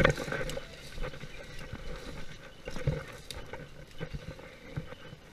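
Footsteps swishing and crunching through tall dry grass: irregular steps, about one a second, with the grass brushing against legs and gun between them.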